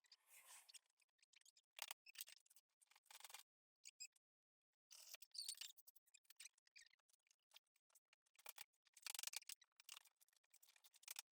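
Faint, irregular clicks and short scraping rustles, starting and stopping throughout, with a denser cluster around the middle and again near the end.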